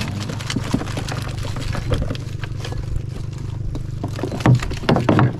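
A small engine running steadily, with irregular knocks and clatter over it and a cluster of louder knocks near the end.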